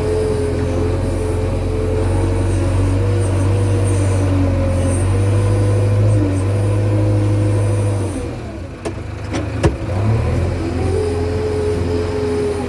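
Diesel engine of a JCB 3DX Super backhoe loader running steadily under work. About eight seconds in, the engine note drops away briefly and there are two sharp clicks, then the engine runs again.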